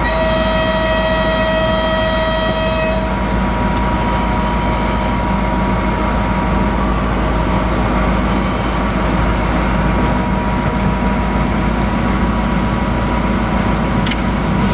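Cab of a TEP60 diesel passenger locomotive under way: the horn sounds one steady tone for about three seconds at the start, over the steady rumble of the diesel engine and running gear. Later come two short hisses of air, the first about a second long and the second about half a second, as the driver works the brake valve.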